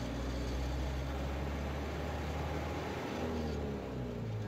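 Steady engine hum and road noise of a vehicle driving along a wide street, heard from on board.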